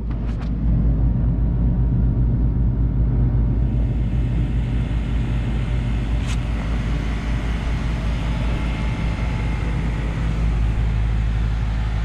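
Goodman 4-ton air-conditioning condenser running: a steady low machine hum with a light click about six seconds in.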